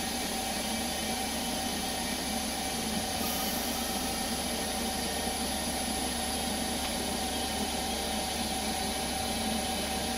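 Small CNC lathe running, spindle turning a plastic bar on a finish pass: a steady machine hum with a constant whine and no pauses.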